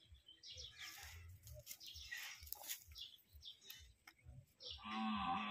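A white humped zebu ox lowing: a long, loud moo starts near the end, after a few seconds of faint bird chirps and low wind rumble.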